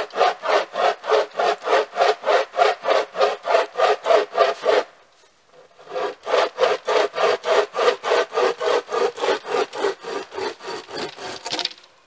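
Hand saw cutting through dry dead wood in quick, even strokes, about four a second. The sawing pauses for about a second near the middle, then resumes and stops just before the end.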